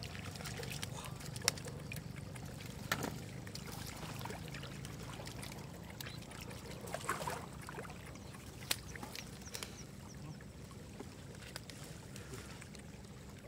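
Hands groping in shallow muddy floodwater and grass, with scattered small splashes and rustles, over a steady low hum.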